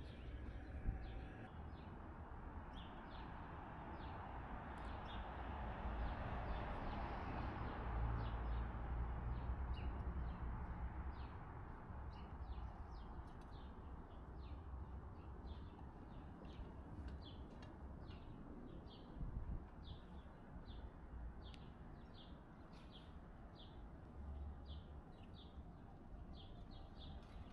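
Small birds chirping over and over in short high notes, more often in the second half. About four seconds in, a broad rushing noise swells up and fades away again by about halfway through.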